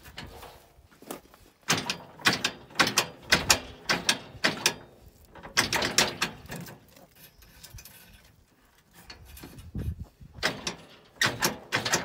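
Metal parts of a plow mount on a Honda 500 side-by-side scraping and creaking in short repeated strokes as they are worked loose by hand. The strokes come in three spells: from about two seconds in, around six seconds, and near the end.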